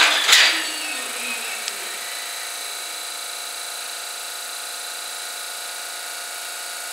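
Two JR West 223 series electric trains coupling: a knock, then a loud clank about a third of a second later as the couplers meet and lock, trailing off with a rattle and hiss within about a second. After that, the steady hum of the standing trains' equipment.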